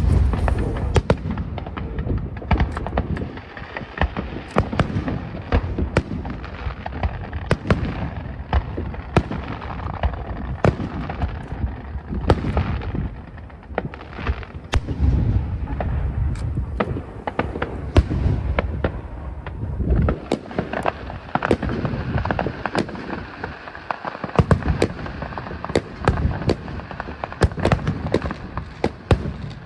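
Aerial fireworks heard from about 450 m away: an irregular, continuous barrage of shell bursts, sharp cracks over a steady low rumble of booms.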